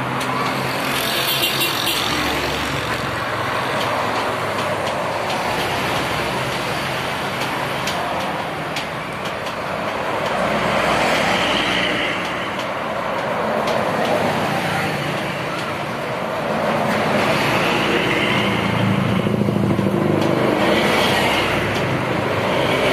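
Road traffic going past close by, tour buses among it: continuous engine and tyre noise that swells and fades as each vehicle goes by.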